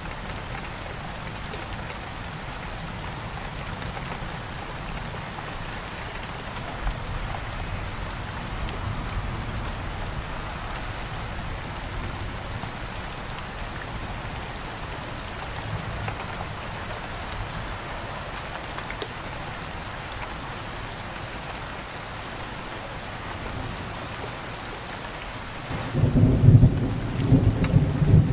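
Heavy rain falling on a window pane, a steady even hiss, with a low rumble of thunder starting near the end that is the loudest part.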